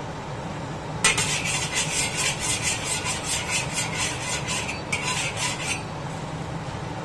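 Metal wok spatula scraping around the inside of an iron wok heating on the stove, in quick repeated strokes, about three a second, that start about a second in and stop shortly before the end.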